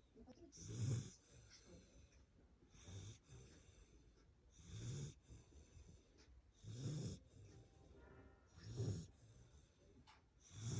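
A 2.5-month-old pet snoring in its sleep, with a loud snoring breath about every two seconds.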